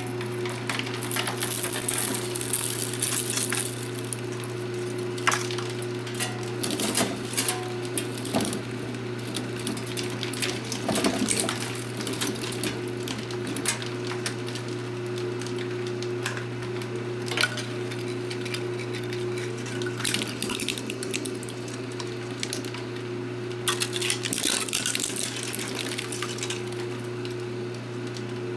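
Twin-shaft shredder running with a steady electric-motor hum while its cutter discs crunch and snap 3D-printed plastic supports and failed prints, in irregular clusters of sharp cracks and clicks, thickest in the first few seconds.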